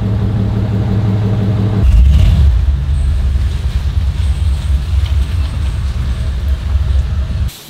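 Engine of an OBS Chevy pickup running while the truck is driven, heard from inside the cab as a steady low hum. About two seconds in it grows louder and deeper as the truck pulls away, then cuts off suddenly near the end.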